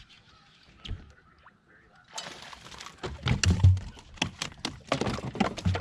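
Quiet at first, then about two seconds in, electronic background music with a heavy, thumping beat starts suddenly.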